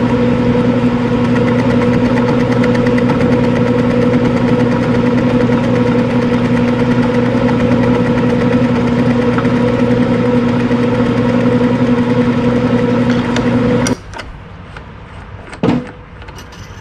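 Metal lathe running with a steady motor and gear hum as its four-jaw chuck spins a collet holder clamped off-centre to turn an offset stud. The hum cuts off suddenly about fourteen seconds in, followed by a few light clicks of handling at the stopped chuck.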